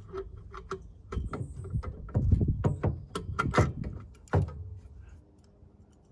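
Clicks, knocks and rattles of a carburetor and its throttle-linkage spring being worked into place by hand on an Onan generator engine. A cluster of louder knocks falls between about one and four and a half seconds in.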